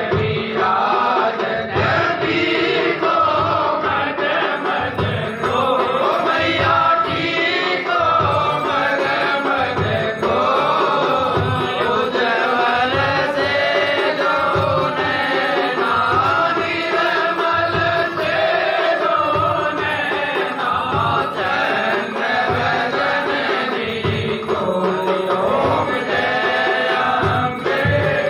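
Hindu devotional aarti song to the goddess, with voices chanting and singing over a steady drum beat.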